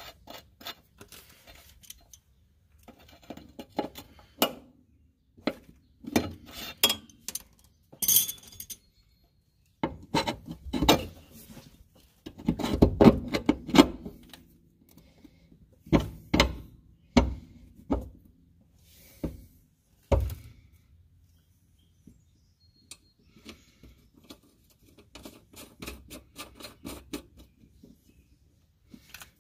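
Hand tools and metal suspension parts clinking and knocking irregularly during work on a car's rear upper control arm, with a quick run of light clicks near the end.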